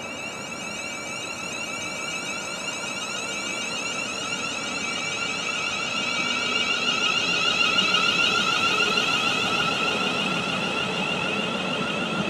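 London Northwestern Railway Class 350 Desiro electric multiple unit pulling out of the station, its traction equipment giving a rising electronic whine in several tones over the rumble of the wheels. It grows louder as the train gathers speed, peaking about eight seconds in.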